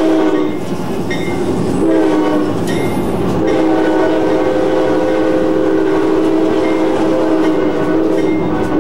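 Diesel locomotive's multi-chime air horn sounding a chord for a grade crossing: a blast that ends just after the start, a short blast about two seconds in, then a long blast from about three and a half seconds on, over the running noise of the moving train.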